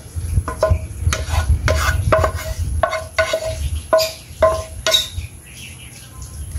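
Spatula scraping and knocking against a wok as stir-fried shrimp is pushed out onto a plate: about a dozen short strokes, each with a brief metallic ring, thinning out after about five seconds.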